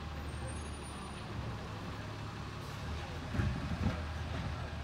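Garbage truck's diesel engine running steadily, a low hum, with a brief louder rumble about three and a half seconds in.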